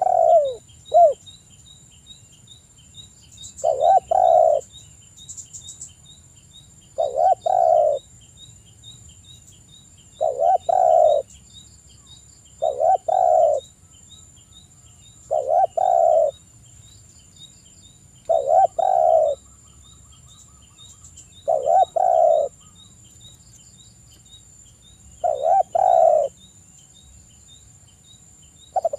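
Male spotted dove cooing: a short, rolling coo phrase repeated about every three seconds, a call to rival males.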